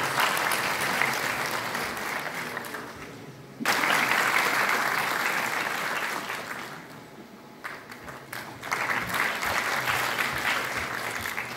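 Audience clapping in three rounds. The first fades away, a second starts suddenly a little under 4 seconds in, and a third begins near 9 seconds.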